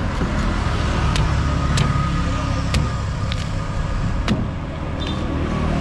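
Heavy cleaver chopping into the tough husk of palmyra palm fruits on a wooden block: about five sharp strikes, roughly one a second. A steady motor-vehicle rumble runs underneath.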